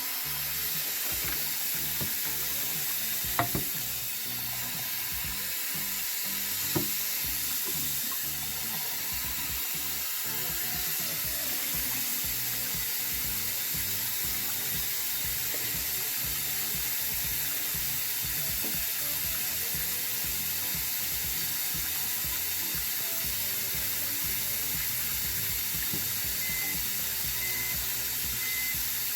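Kitchen tap running steadily into the sink while rice is rinsed, with two short knocks, about three and a half and seven seconds in.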